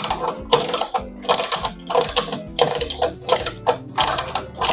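Ratchet wrench on a mechanical scissor jack's screw, its pawl clicking in quick runs with each swing of the handle as the jack is wound down.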